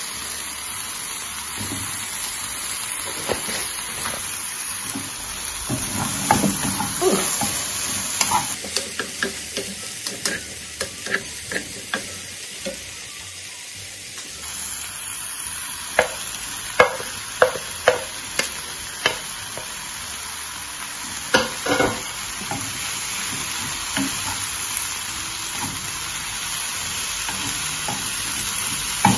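Chopped vegetables sizzling in oil in a non-stick frying pan as they are stir-fried with a wooden spatula. Sharp knocks of the spatula against the pan sound over the sizzle, in a quick run a little past halfway.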